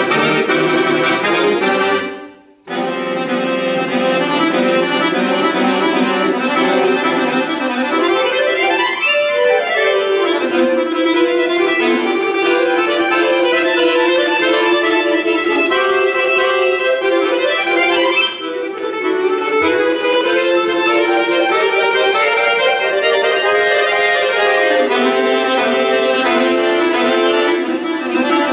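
Solo chromatic button accordion (bayan) playing: a loud opening chord cuts off for a moment about two seconds in, then the playing runs on continuously with rapid runs sweeping up and down the keyboard.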